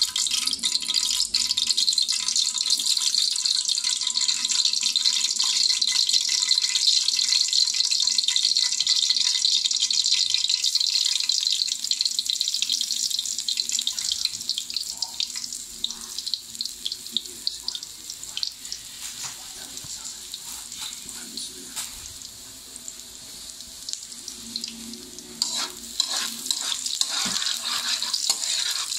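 Cooking oil hissing in a hot wok, loud for the first ten seconds or so and then quieter once minced garlic is in, with a metal spoon clicking and scraping against the pan near the end as the garlic is stirred.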